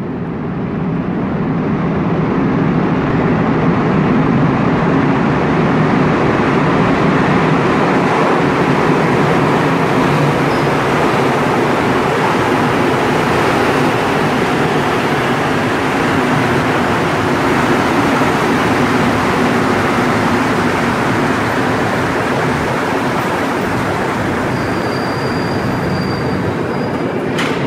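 Montréal Métro Azur rubber-tyred train pulling into a station platform, a loud steady rumble and hiss of the cars running past that fades up at the start. A brief high tone sounds near the end.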